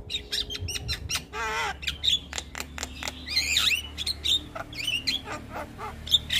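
Javan myna (jalak kebo) in full song: a dense, unbroken string of sharp clicks, chattering squawks and short whistled chirps, with a wavering, quavering note about a second and a half in.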